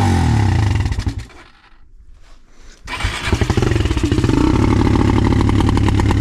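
Off-road vehicle engine running hard as the rider tries to climb the hill. About a second in, the sound drops away for a second and a half, then the engine comes back and runs on, climbing in pitch near the end.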